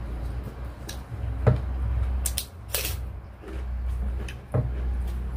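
Scattered light clicks and knocks of a meal at the table, plates and utensils being handled while people eat, over a steady low hum.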